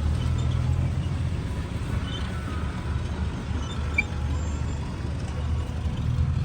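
Jeep engine running with a low, steady rumble that swells and eases slightly; a small click about four seconds in.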